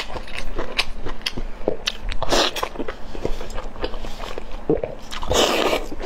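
Close-miked wet chewing and biting of broth-soaked oden pieces: a dense run of short, moist mouth clicks, with two longer, louder bursts about two seconds in and near the end.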